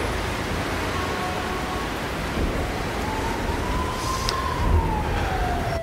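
Steady city street ambience: a constant hiss and rumble of traffic, with a faint drawn-out tone that slowly falls in pitch over the last few seconds.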